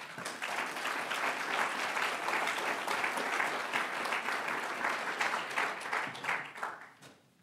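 Audience applauding; the clapping thins out and dies away near the end.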